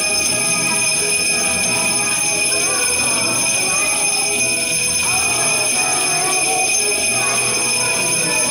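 A group of small children shaking hand-held jingle bells, a steady jingling.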